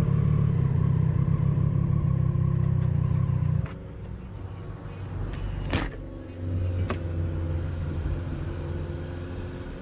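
Motorcycle engine running steadily under way, then dropping off sharply about three and a half seconds in as the bike slows and stops, and idling low after that. A few sharp clicks or knocks in the middle, the loudest a little under six seconds in.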